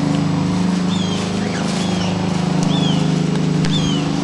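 A steady low mechanical hum, engine-like, runs throughout, with a bird giving short repeated chirps over it about once a second.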